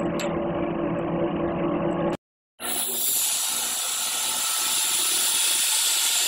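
A screw oil expeller running with a steady machine hum and a couple of light clicks. After a sudden break, there is a steady hiss of air at the valve and hose at the base of the oil filter tank.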